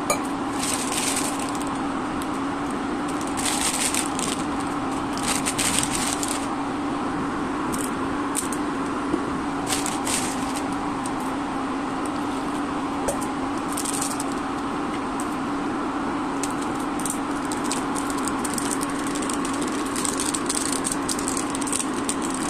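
Induction cooktop's cooling fan humming steadily under intermittent hissing and crackling from the hot pan as water is poured in and noodles go in. Near the end a seasoning sachet is torn open and crinkles.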